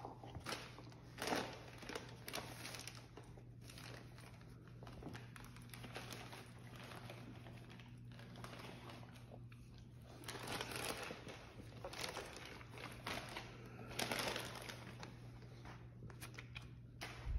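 Wrapping paper crinkling and rustling in short, irregular bursts, with a faint steady low hum underneath.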